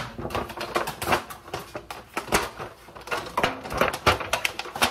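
Disposable aluminium foil pan being handled, giving an irregular run of crinkly clicks and taps.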